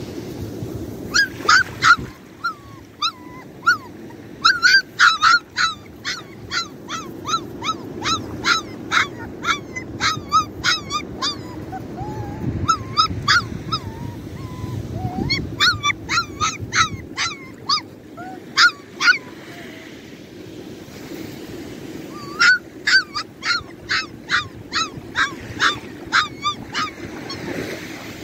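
A small puppy yelping: bouts of short, high-pitched yips, two or three a second, with pauses of a few seconds between bouts.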